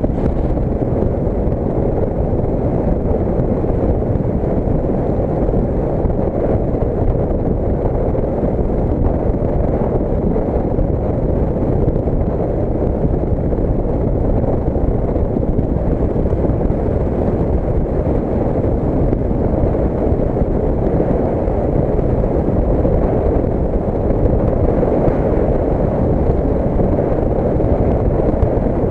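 Wind buffeting the microphone, mixed with the engine and road noise of a motor scooter cruising at a steady speed: a dense, steady low rumble without a distinct engine note.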